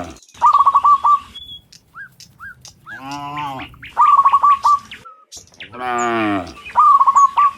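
Cattle mooing in short calls that fall in pitch, about every three seconds, alternating with quick runs of high chirping notes.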